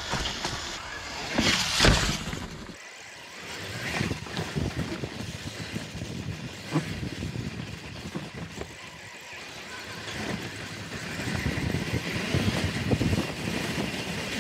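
Traxxas TRX-4 RC crawler's tyres crunching and crackling over dry leaves and dirt, with no engine-sound module running. There is a loud burst of crackle about two seconds in, and the crunching grows louder and denser near the end.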